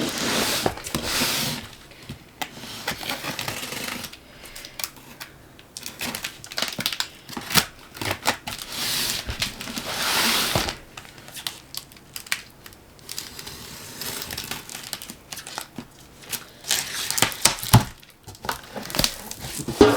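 Cardboard and plastic packaging being opened and handled by hand: irregular crinkling and rustling, with a few longer swells of rustle and many short sharp clicks and knocks.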